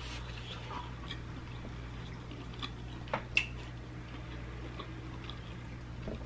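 Quiet room tone: a steady low electrical hum with scattered faint clicks and ticks, two sharper ticks a little over three seconds in.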